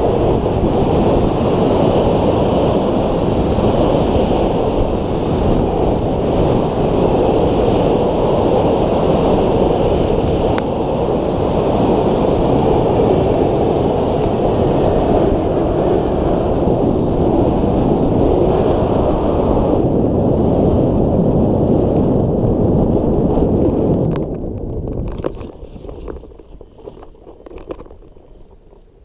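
Rushing wind noise on a hang glider's wing-mounted camera during the final approach, steady and loud, then dying away about five seconds before the end as the glider slows and lands, leaving faint wind and a few light knocks.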